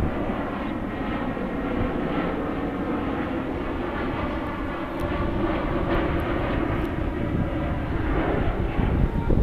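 Jet engines of an Airbus A321 descending on approach with its landing gear down, heard from the ground as a steady drone that grows a little louder in the second half.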